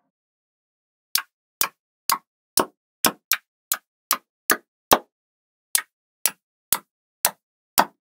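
Small cubes of neodymium magnet balls snapping onto one another as they are stacked into towers: sharp clicks about two a second, starting about a second in, with a short pause midway.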